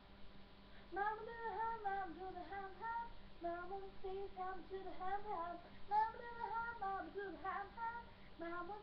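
A young girl singing a pop song in held, melodic phrases, starting about a second in with a short break about halfway through.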